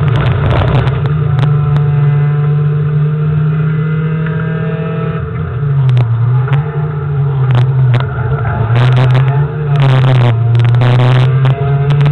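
Rallycross car's engine heard from inside the cabin, holding steady revs at first, then dropping and rising again several times from about halfway. Several sharp knocks and rattles come through, most of them in the second half.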